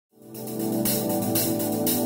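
Background music fading in: sustained keyboard chords over a steady beat of hi-hat or tambourine strikes about twice a second.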